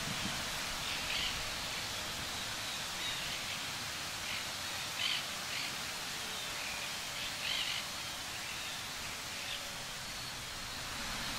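Steady outdoor hiss with short, high bird chirps now and then.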